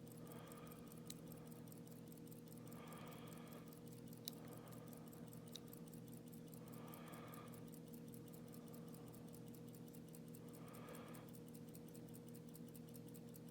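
Near silence: a faint steady hum with a few soft clicks of a lock pick working the pins of an Abus 72/40 padlock held in a false set. A faint sound about a second long recurs roughly every four seconds.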